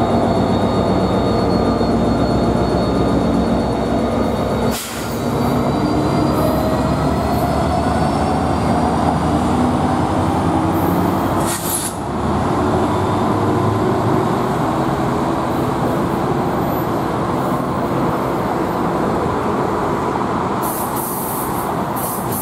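Commuter trains running through a station: a diesel locomotive's engine and its wheels on the rails make a steady rumble with several held tones. The sound breaks off briefly twice, about five and twelve seconds in.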